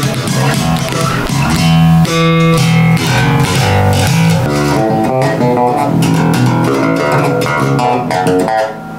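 Passive five-string Elegee Alab Series J-bass played fingerstyle through a small practice amp: a melodic run of single plucked notes, with one note left to ring about two seconds in.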